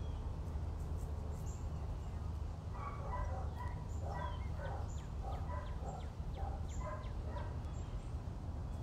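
A run of short, warbling animal calls, with some notes gliding down, starting about three seconds in and stopping near the end, over a steady low hum.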